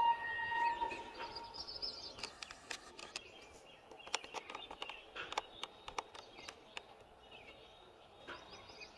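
An electric locomotive's horn sounds and cuts off about a second in, then birds chirp repeatedly over faint background noise as the freight train approaches.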